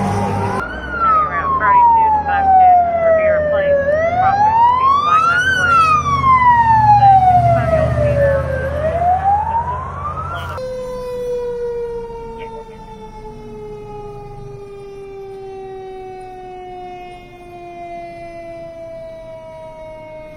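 Fire truck siren wailing, sweeping slowly up and down in pitch over truck engine rumble. About ten seconds in it changes to one long tone sliding slowly down in pitch, fainter.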